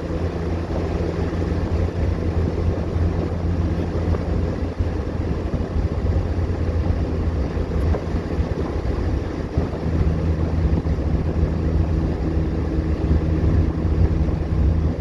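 1985 Alfa Romeo Spider's twin-cam four-cylinder engine running at cruise, under a steady rush of wind and road noise. The engine hum drops back about four seconds in and picks up again about ten seconds in.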